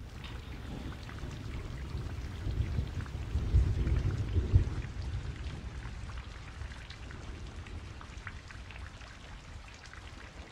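Steady rain with a scatter of fine drop ticks and a low rumble that swells about halfway through, then eases off.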